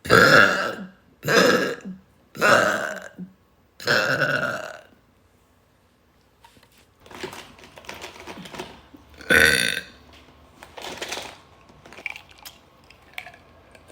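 A woman burping loudly in a series: four burps in quick succession, then after a pause another loud burp about nine seconds in, with a few smaller ones around it.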